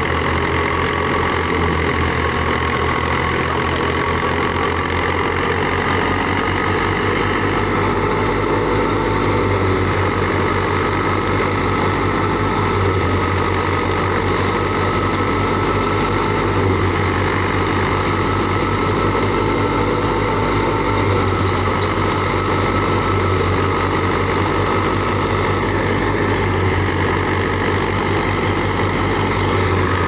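Fiat 480 tractor's three-cylinder diesel engine running steadily under load, driving a wheat thresher and putting out black exhaust smoke, with a steady high whine above the engine note.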